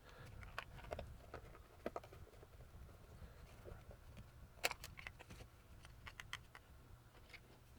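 Faint, scattered clicks and light taps of small hard objects being handled, with one sharper click a little past halfway.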